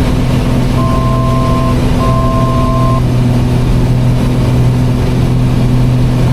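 Piston twin's engines and propellers droning steadily, heard in the cockpit. Two electronic two-tone beeps of about a second each sound about one and two seconds in.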